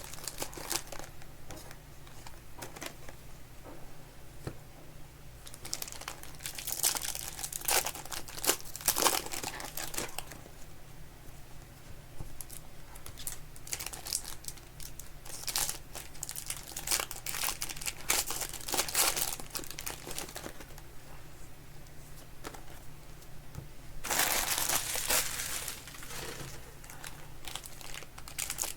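Trading card pack wrappers being torn open and crinkled by hand, in irregular bursts of rustling with a longer, denser stretch of crinkling near the end.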